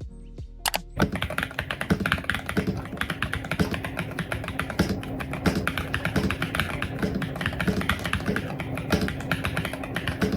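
Fast typing on a mechanical keyboard: a few separate key clicks, then from about a second in a dense, continuous clatter of keystrokes.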